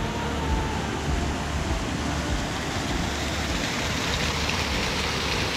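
Steady rushing of a small stream flowing alongside, an even noise that grows a little brighter towards the end, over an irregular low rumble. A faint musical tone fades out in the first second.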